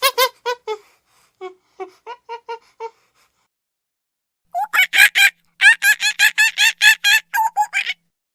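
A monkey calling in quick runs of short, high calls, about four or five a second. A first run fades out within about three seconds, and after a pause of about a second and a half a louder run starts, stopping shortly before the end.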